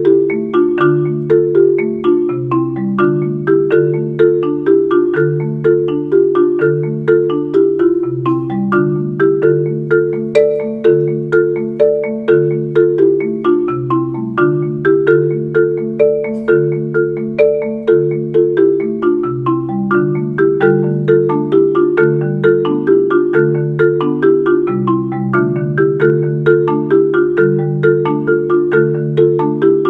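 Solo marimba played with mallets: a steady stream of struck notes, a low repeating bass figure under quicker notes in the middle and upper range.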